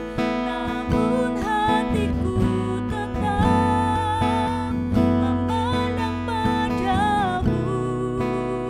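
A woman singing with a strummed acoustic guitar, her held notes wavering in pitch over the guitar chords.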